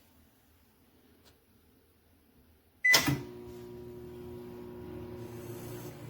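COMFEE' EM720CPL-PM countertop microwave oven: a short beep and a sharp click about three seconds in, then the oven starts running with a steady hum.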